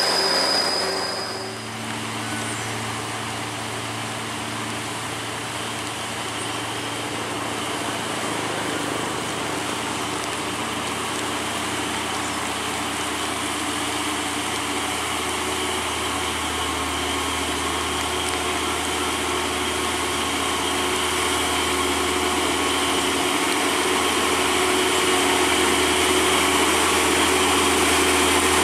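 Hino 500 truck's diesel engine labouring up a wet, slippery hill at steady revs, its note holding level and growing louder as the truck nears. It opens with a passing flatbed trailer truck, which cuts off about a second and a half in.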